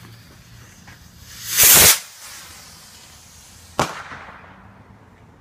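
Firework rocket, its fuse lit by an electrically heated resistor, launching with one short loud whoosh about one and a half seconds in, followed about two seconds later by a single sharp bang as it bursts.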